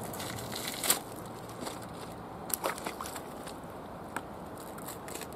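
A few sharp clicks and crunches of a person moving on loose shoreline rocks, the loudest about a second in, over a steady background hiss.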